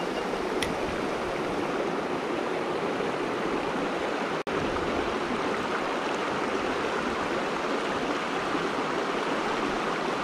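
Shallow, rocky mountain stream rushing steadily over stones, with a momentary gap in the sound about halfway through.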